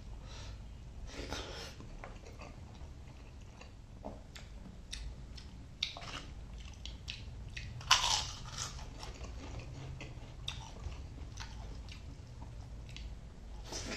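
A person eating a prawn masala meal close to the microphone: chewing and biting, with scattered short crunches and one louder crunch just past halfway.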